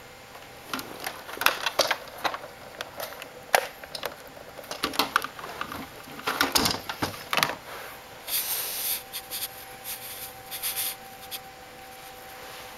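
Plastic clicks and knocks of a Cisco 7940G IP phone's handset being jiggled in its cradle, in clusters of several sharp clicks, followed by a few seconds of rustling. A faint steady tone runs underneath, with a second one joining about eight seconds in.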